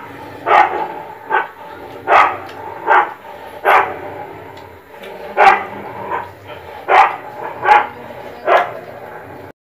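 A dog barking over and over, about ten single barks spaced a little under a second apart, with a short pause midway; the sound cuts off suddenly near the end.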